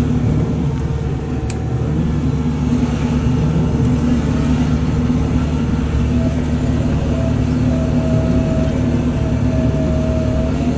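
Kubota L-series tractor's diesel engine running steadily at working speed. A thin, higher whine comes and goes over it in the second half.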